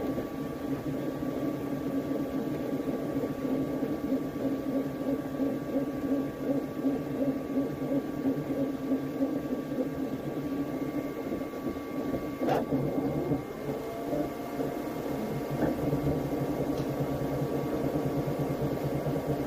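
Flashforge Adventurer 5M Pro 3D printer running a print: steady fan whir under the hum of the stepper motors, which wavers as the print head moves. One sharp click past the middle, with a couple of faint ticks after it.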